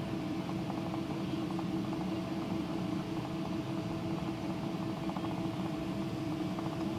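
Boeing 777-200's Pratt & Whitney PW4000 turbofans at low thrust, heard inside the cabin as a steady hum with a droning tone, as the jet rolls onto the runway before the takeoff run.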